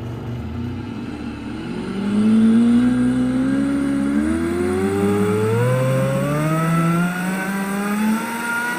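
Blender motor running on a load of almond flour and powdered sugar, its whine climbing steadily in pitch as it speeds up.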